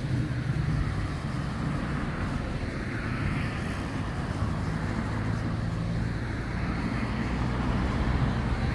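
Road traffic: a steady vehicle noise with a low hum, swelling as a vehicle passes about three seconds in and again near the end.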